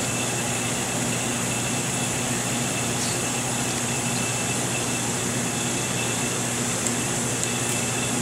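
Steady machinery hum over an even hiss, unchanging, with a faint tick about three seconds in and another near the end.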